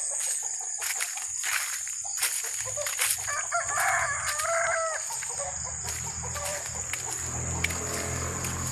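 A rooster crowing once, a call of about a second and a half starting about three seconds in, over a steady high-pitched tone and scattered clicks.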